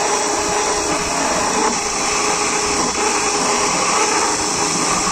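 DeWalt DCD777 20V brushless drill-driver running a rotary rasp bit at high speed, grinding steadily into plywood. The bit bounces and chatters as it meets the alternating grain of the plywood plies.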